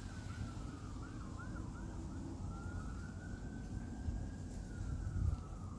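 Emergency vehicle siren, first in a quick yelp of rapid rising-and-falling whoops, then changing about two and a half seconds in to a slow wail that rises and falls.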